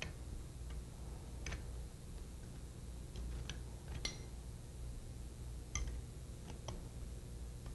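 Scattered sharp metallic clicks and ticks, about eight of them at irregular spacing, from a hand tool working the bolts of a sliding-vane pump's relief valve cap as they are tightened, over a low steady hum.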